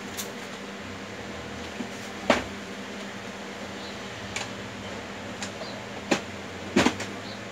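Plastic clicks and knocks from the top scanner lid of an Epson L565 ink-tank printer being lifted and lowered by hand. The loudest click comes about two seconds in, a few lighter ones follow, and a quick double knock comes near the end, over a steady room hum.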